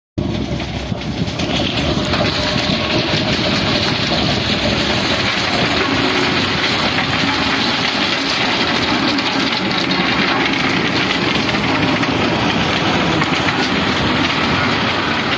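Massey Ferguson tractor's diesel engine running as it hauls a blue hopper wagon on rail wheels along the track, steel wheels rumbling and clicking on the rails. Loud and steady throughout.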